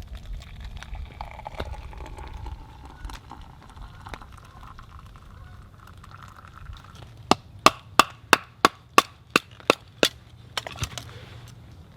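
A quick, even run of about ten sharp knocks, roughly three a second, starting about seven seconds in, with a few more just after; before that only a low, steady background.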